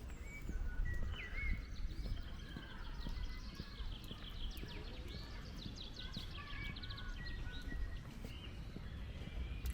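Several small songbirds singing together: whistled notes, chirps and a fast trill in the middle, over soft footsteps on a path and a steady low rumble.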